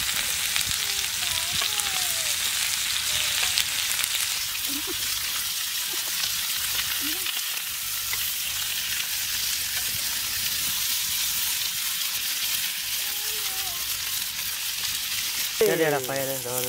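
Quails frying in butter in a pan, sizzling steadily, with a short falling pitched cry near the end.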